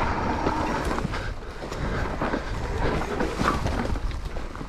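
Mountain bike running down a rough trail: tyres rolling over dirt and stones, with steady rattling and clattering from the bike over bumps.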